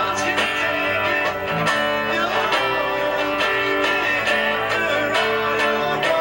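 Live acoustic band playing an instrumental passage: two strummed acoustic guitars over a bass guitar, with a steady strumming rhythm.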